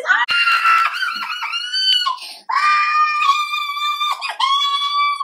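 A woman screaming with excitement in two long, high-pitched screams: the first rises out of her speech, the second is held steady for about two and a half seconds.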